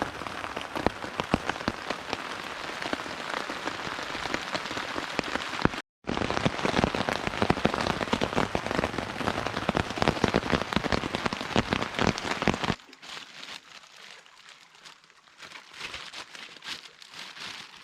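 Steady rain falling on a surface, a dense patter of individual drop hits, cut off briefly about six seconds in. About thirteen seconds in it becomes much quieter, with only scattered drips.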